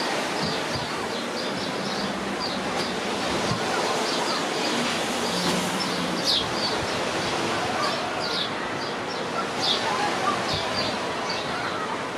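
Steady seaside ambience, a hiss of sea and wind, with short high bird chirps scattered through it about once or twice a second.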